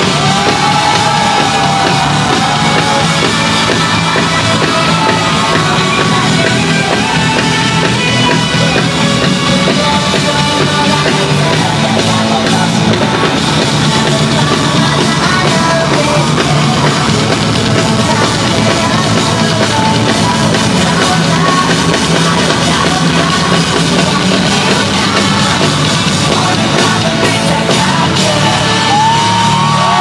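Loud live music over an arena's PA system, heard from within the audience, with fans yelling over it.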